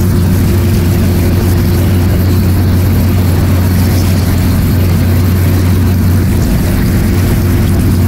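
A boat engine running steadily, an even low drone with a constant hum.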